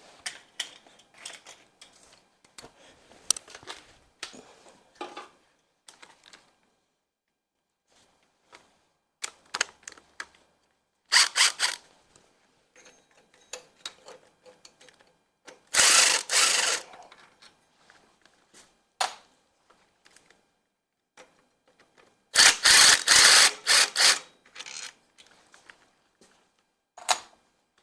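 Hand ratchet wrench clicking as engine bolts are worked loose. The clicking comes in three loud spells, about a third of the way in, in the middle, and about four-fifths in, with lighter clicks and tool clinks between them.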